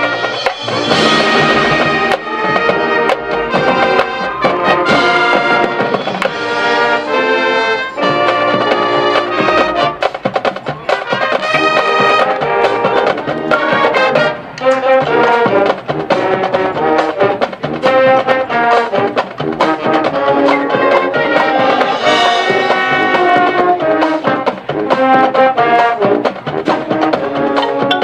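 Marching band playing: the brass section holds loud chords that change every second or two, with percussion underneath.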